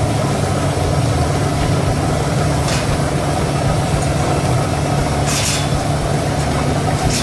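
Steady low mechanical hum of a running motor or engine, with two short hissing bursts, one a few seconds in and a longer one past halfway.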